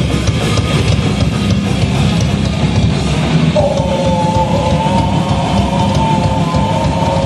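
A live heavy metal band playing: drum kit and electric guitars at full volume. About halfway through, a long held note comes in over the riff.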